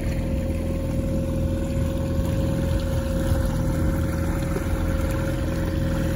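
Mercury outboard motor running steadily at trolling speed: a constant low drone with a steady whining tone over it, and propeller wash churning behind the stern.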